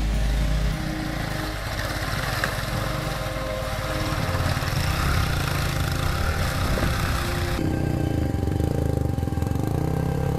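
Off-road motorcycle engines running and revving as the bikes climb a muddy stream bed. About three-quarters of the way through, the sound changes abruptly to a Yamaha WR400F enduro bike's four-stroke single-cylinder engine close by, working through shallow water.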